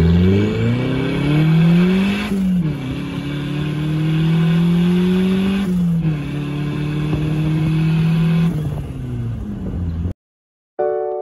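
Turbocharged 1.6-litre Mazda Miata four-cylinder engine, heard from inside the cabin, accelerating hard with its pitch climbing, dropping at two upshifts about two and a half and six seconds in, then easing off. The engine sound cuts out near the end and a piano note begins.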